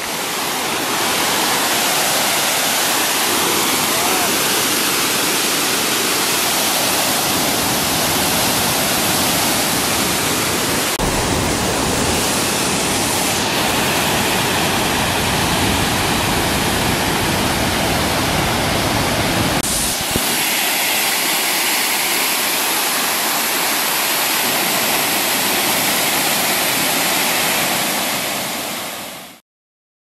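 Aubrey Falls, a waterfall on the Mississagi River, rushing steadily as water pours over the rock ledges. The sound shifts a little in tone twice, about a third and two thirds of the way through, then fades out near the end.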